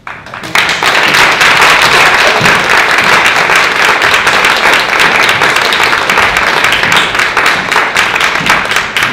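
Audience applauding: a dense burst of clapping that swells up within the first half-second and holds steady.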